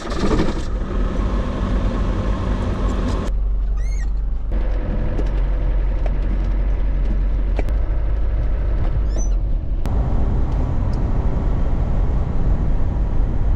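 Old Land Rover Defender running, a steady low engine drone with road noise. The sound changes abruptly about three seconds in and again near ten seconds.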